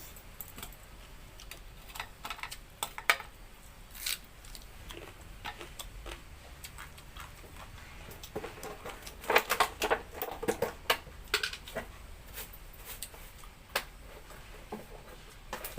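Close-up eating sounds: irregular wet clicks and smacks of chewing and of eating by hand, busiest in a quick cluster about halfway through.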